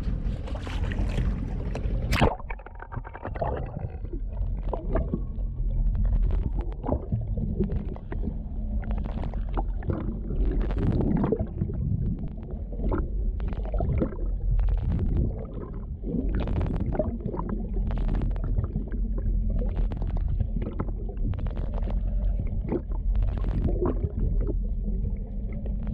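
Underwater audio from a camera plunged in beside a boat, going in with a sharp splash about two seconds in. After that there is a steady low rumble with irregular gurgling, sloshing surges of water over the camera, once or twice a second.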